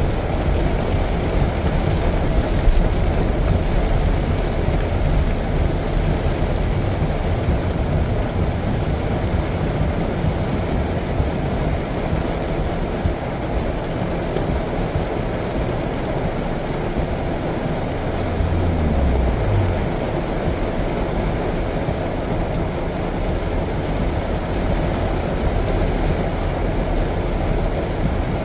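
City traffic in the rain: a steady, dense low rumble of motor vehicles with a hiss of rain over it, and one engine rising briefly in pitch about two-thirds of the way through.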